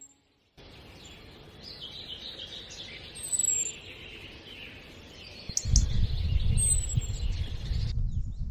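Birds chirping in a forest, a few short high falling chirps over a steady high-pitched chorus. From about two-thirds of the way in, a loud irregular low rumble takes over.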